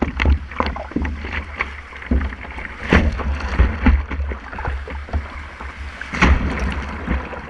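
Surf and whitewater rushing and splashing against a surfboard as it rides a small breaking wave, with a low buffeting rumble on the board-mounted camera. Sharp splashes stand out about three seconds in and again a little after six seconds.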